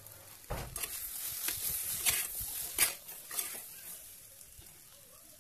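Brinjal and drumstick pieces sizzling in hot oil in a clay pot while a metal spoon stirs them, scraping and knocking against the pot for the first three seconds or so; after that the sizzle goes on more quietly.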